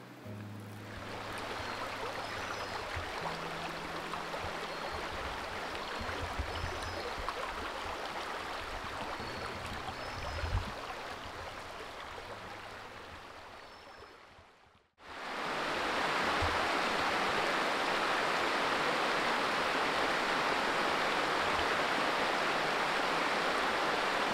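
Steady rushing of flowing river water. It fades out about two-thirds of the way through, and after a brief silence a louder, even river rush takes over.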